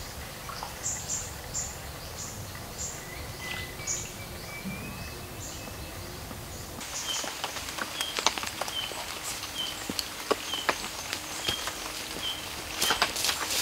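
Forest ambience with birds calling: short high chirps repeated every half second or so, then from about seven seconds in a different, lower chirp repeated about twice a second. Scattered crackling clicks thicken into a cluster near the end.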